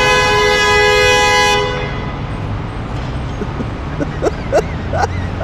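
Car horn honking, one steady blast held for about two seconds. Road noise continues after it, with a few short vocal sounds near the end.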